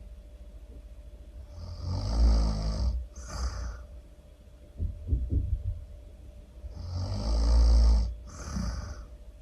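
Really loud human snoring, two full breaths: a rough, rumbling snore about two seconds in and again about seven seconds in, each followed by a shorter, breathier out-breath.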